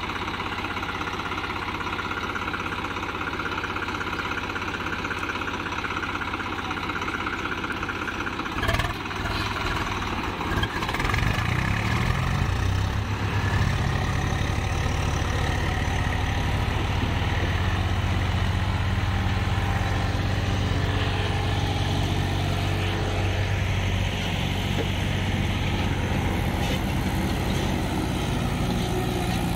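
Swaraj tractor diesel engines running steadily. A short knock comes about nine seconds in, and from about eleven seconds an engine grows louder and fuller as the Swaraj 735 FE takes the strain on the chain, towing a stuck tractor with a loaded trolley. It eases off slightly near the end.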